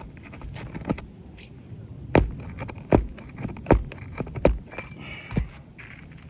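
A tool knocking on an asphalt-shingle roof: five sharp, deep knocks about a second apart, over light scraping and ticking. It is the sound of working a bar under the shingles to break their seal before a damaged shingle is pulled.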